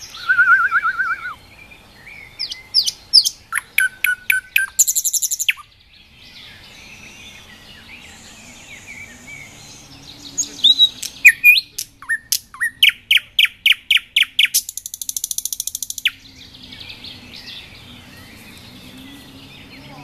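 A nightingale singing in loud, varied phrases: a quick trill, a run of sharp whistled and clicking notes ending in a fast buzzing rattle, then after a few seconds' pause a phrase of one note repeated rapidly about a dozen times, ending in another rattle.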